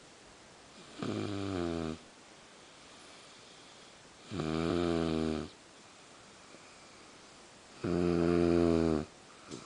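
A woman snoring in heavy sleep: three loud, pitched snores, each about a second long, roughly every three and a half seconds.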